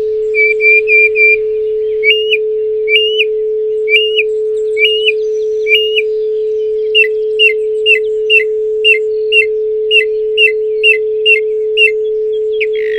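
A steady pure tone of about 432 Hz is held throughout. Over it a songbird sings repeated clear whistled notes: a short quick run first, then slower rising notes about a second apart, then quicker falling notes about two a second.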